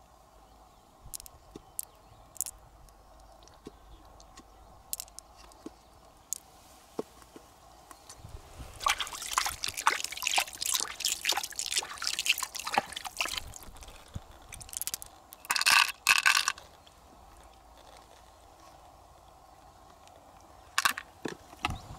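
Wet squelching and crackling of fingers digging pearls out of the soft flesh of an opened freshwater pearl mussel, with scattered light clicks. The squelching is densest from just under halfway in, and a brief louder burst follows about two-thirds of the way through.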